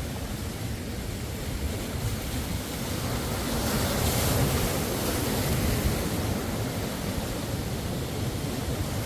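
Ocean surf: a steady wash of noise that swells as a wave breaks near the middle, then eases back.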